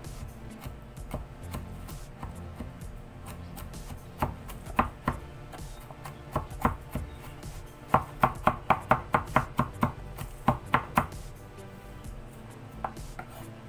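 Kitchen knife mincing garlic on a cutting board. Scattered chops, then a quick even run of about five chops a second for about two seconds, and a few more after.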